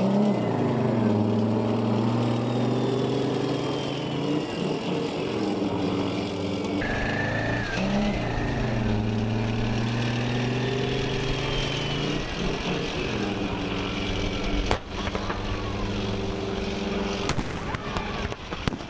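Type 74 tank's air-cooled V10 diesel running as it drives across a dirt arena, its pitch dipping and rising as it changes speed a few times. A sharp bang about three-quarters through and a quick cluster of bangs near the end come from the mock battle's blank fire and pyrotechnics.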